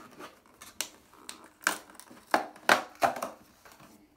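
A cardboard Tampax Radiant tampon box being torn open by hand: a run of short, sharp rips and snaps, the loudest in the middle.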